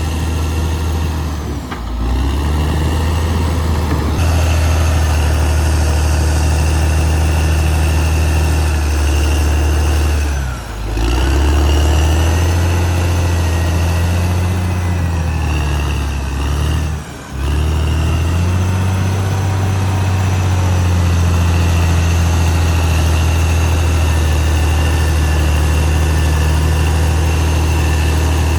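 Caterpillar D6R XL bulldozer's diesel engine running steadily, with a faint whine that rises and falls in the middle. The engine sound dips sharply for a moment three times, about two, eleven and seventeen seconds in.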